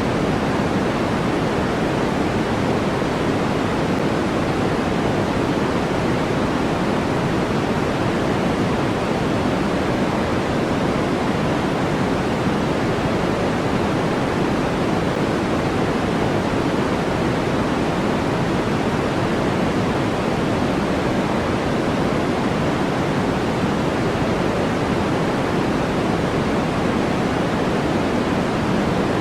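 Steady synthetic white noise played as a sleep sound: an even, unchanging hiss. It leans toward the low and middle range rather than the highs.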